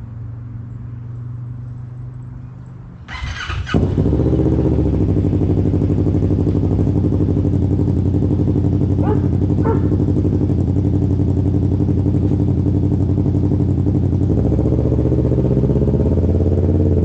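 Kawasaki Teryx KRX 1000 side-by-side's parallel-twin engine, breathing through a cheap aftermarket muffler. A low hum for the first three seconds, then the exhaust comes in loud about three seconds in and runs on as a steady, loud idle. The note changes slightly near the end.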